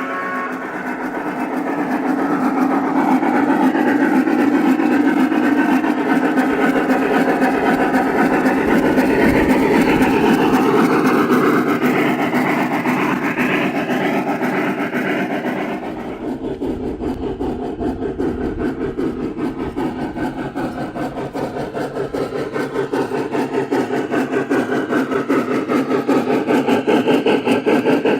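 Synthesized steam-locomotive sound from a TCS WOW501-Steam sound decoder, played through the small onboard speaker of a Lionel Large Scale 4-4-2 Atlantic as it runs. It is a continuous chuffing sound that turns into a fast, even pulse a little past halfway.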